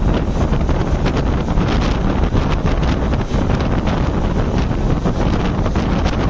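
Wind buffeting the microphone held out of a moving passenger train's sleeper coach. The coach's running rumble on the rails sits underneath, loud and steady.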